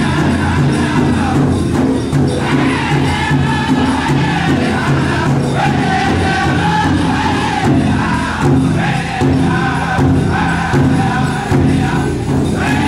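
Powwow drum group singing a grand entry song in chorus over a steady beat on a big drum.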